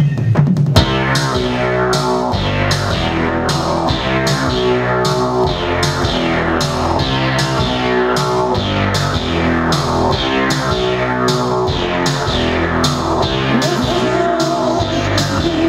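Live band music: electric guitar chords over synthesizer and a steady beat of about two strikes a second, the full band coming in under a second in. A new high held note enters near the end.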